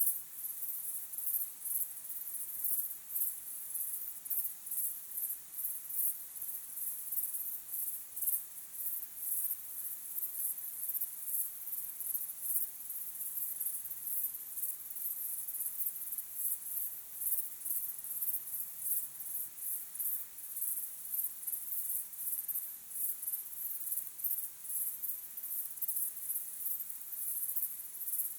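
A chorus of crickets chirping: many overlapping high-pitched pulses repeating several times a second without a break.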